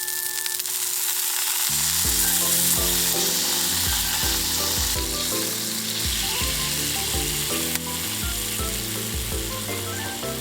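Food sizzling as it fries in a hot pan, over background music.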